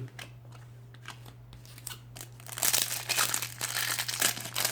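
Foil wrapper of a football trading-card packet crinkling as it is handled and torn open, a dense crinkle lasting about two seconds from just past the middle, after a few light clicks of handling. A steady low hum runs underneath.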